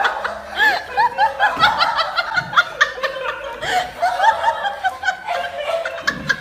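A person laughing in a long run of quick, high-pitched giggles.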